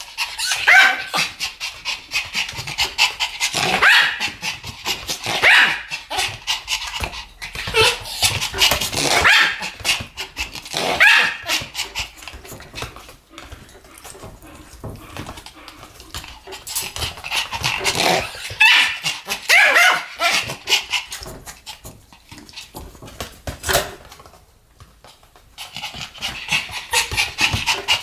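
Two Pomeranians barking back and forth in repeated bursts of yapping barks, with many sharp clicks in between and a brief lull about three-quarters of the way through.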